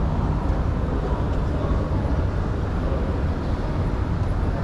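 Steady low rumble of a running escalator, mixed with the general noise of a busy airport terminal hall.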